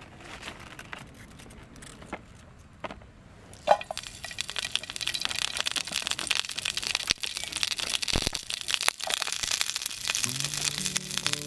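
Shredded cabbage and vegetables dropped into a hot pot, with a sharp hit a little under four seconds in, then steady sizzling and crackling as they fry. A few faint crackles come before it.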